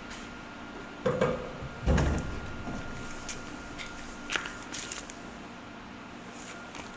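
Suzuki Swish scooter's belt-drive clutch area making its abnormal noise over a steady running sound: two loud clunks about one and two seconds in, then lighter clicks a couple of seconds later. The noise has returned after a new clutch bell and clutch.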